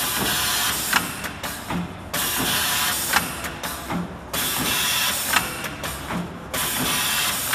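Multi-lane liquid stick-pack machine running through its cycles: a rush of air hiss that cuts off abruptly, a sharp click and a lighter knock, repeating about every two seconds.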